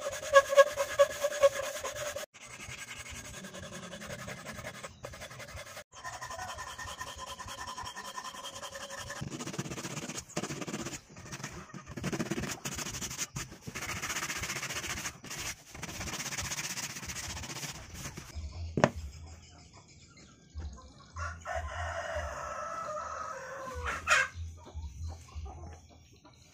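Hand filing, then sandpaper rubbing, on a small wooden slingshot fork, with chickens clucking and a rooster crowing in the background.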